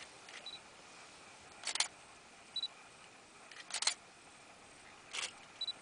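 Digital SLR camera shutter firing three times, about two seconds apart, each a quick cluster of clicks. Short high beeps from the camera's focus confirmation come between the shots.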